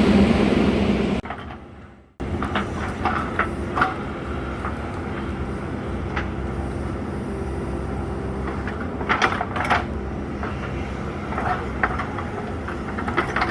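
JCB 3DX Super backhoe loader's diesel engine running loud, then dropping out abruptly about a second in. After a second's gap a steadier, quieter engine hum returns with scattered metallic knocks and clanks from the machine working.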